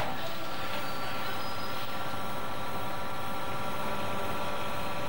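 A steady mechanical drone with an even hiss and a few held tones, unchanging throughout.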